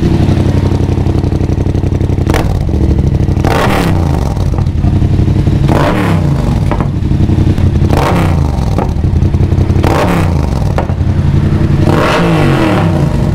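Yamaha MT-07's parallel-twin engine, breathing through an aftermarket Exodus slip-on muffler, idling and blipped about every two seconds, each rev falling back to idle. The exhaust note has something like an echo to it.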